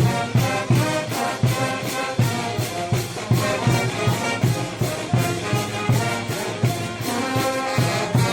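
A brass band from Peru's Mantaro Valley playing, with held horn notes over a steady beat.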